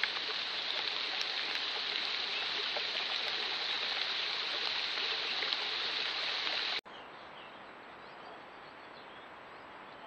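Hail shower: a dense, steady hiss of hailstones pattering down on the woodland floor and leaves, which cuts off abruptly about two-thirds of the way through, leaving a much quieter background.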